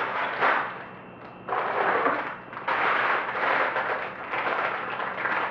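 Sealed plastic bags of Lego pieces crinkling and rustling as they are handled and lifted out of the box, in bursts with a short lull about a second in.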